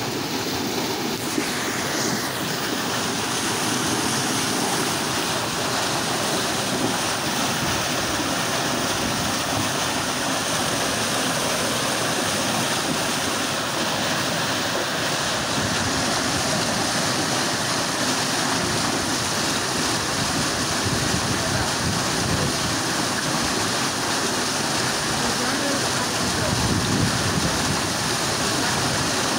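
Pumped water gushing out of a discharge outlet into a concrete reservoir channel: a steady rush of churning, splashing water.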